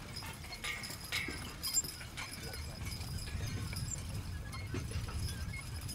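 A six-horse draft team pulling a horse-drawn field implement: hooves and clinking harness, with a few sharp metallic clinks in the first two seconds, over a steady low rumble.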